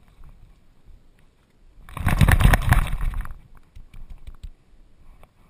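A loud rattling, rustling burst lasting about a second and a half from a GoPro strapped to a Doberman's back, jolted by the dog's own movement; the wet dog shaking off water or splashing through the shallows would both fit.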